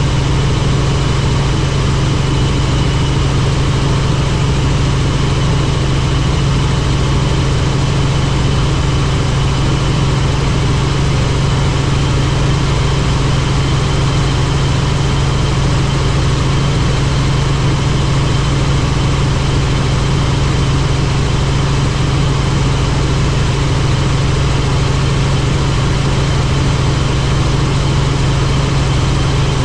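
Helicopter turbine and rotor running steadily: an unbroken low drone with a faint, steady high whine above it.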